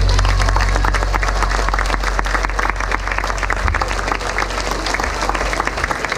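Audience applauding, many hands clapping in a large sports hall, the applause easing off slightly toward the end.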